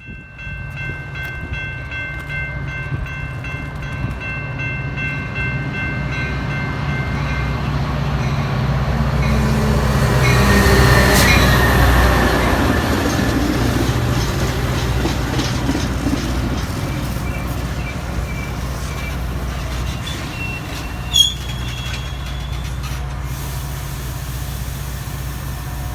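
A train passing close by: a steady low engine rumble that builds to its loudest about eleven seconds in, then the rolling of the cars. A set of steady high tones sounds for the first seven seconds or so, and there is a brief sharp squeal about twenty-one seconds in.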